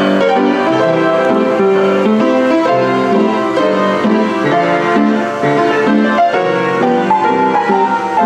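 Nickelodeon player piano playing a tune by itself.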